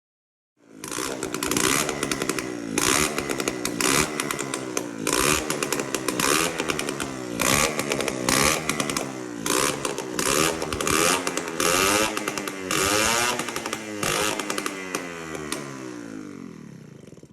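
Yamaha PW50's small two-stroke single-cylinder engine running after a worn crankshaft seal was replaced, blipped up and down about once a second. The revs sink away near the end.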